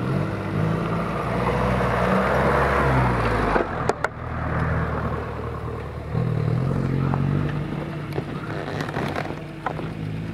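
Off-road vehicle engine running under way, its revs dropping a few seconds in, climbing again around six seconds, then easing off. A rushing noise lies over it for the first four seconds, and a couple of sharp knocks come at about four seconds.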